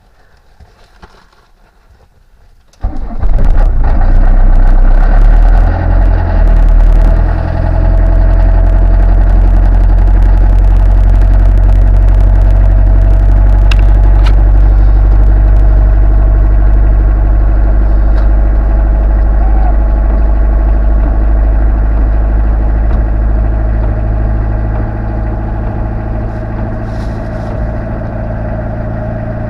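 Talbot Express motorhome's diesel engine starting about three seconds in after its glow plugs are pre-heated, a cold start after a month standing. It runs a little unevenly for a few seconds, then settles into a steady idle.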